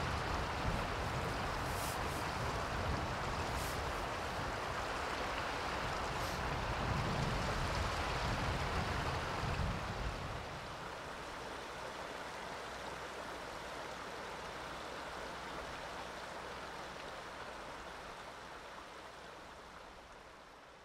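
Steady rushing of a shallow mountain stream, with an uneven low rumble under it. About ten seconds in the sound drops to a quieter steady rush, which fades away near the end.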